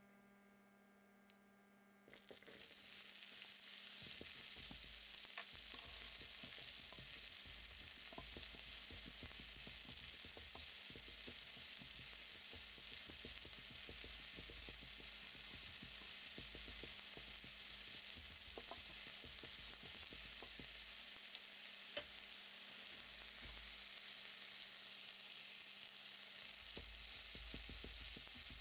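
Chopped red onion frying in hot oil in a nonstick pan: a steady sizzle that starts suddenly about two seconds in, with scattered light clicks and scrapes of a silicone spatula stirring it.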